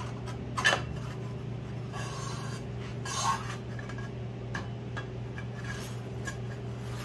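Handling sounds of metal exhaust tubing being worked on a wooden layout tool: a sharp knock about half a second in, scraping around two and three seconds in, then scattered light clicks, over a steady low hum.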